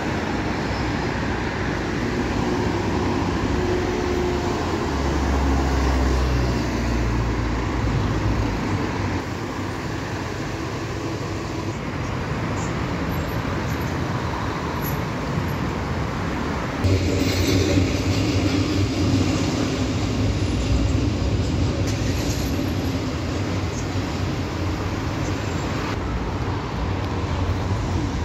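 City street traffic with a city bus at the stop: a steady mix of engines and tyres, with a low engine rumble swelling in the first quarter and a louder vehicle suddenly coming up a little past halfway.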